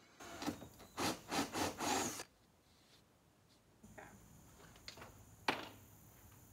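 Power drill with a hole saw rasping into thin wood paneling in about five short bursts, cutting only partway through the panel. A sharp click follows several seconds later.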